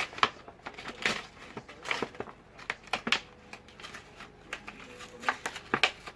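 Packaging being handled and pulled open by hand: an irregular run of sharp clicks and crinkling crackles.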